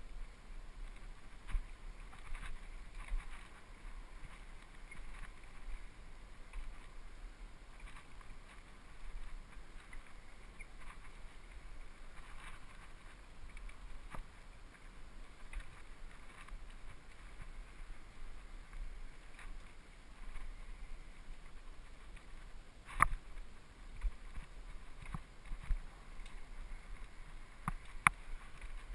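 Mountain bike ridden fast over a dirt singletrack: a steady rumble of tyres on packed dirt with scattered knocks and rattles over bumps. The two loudest sharp knocks come in the last few seconds.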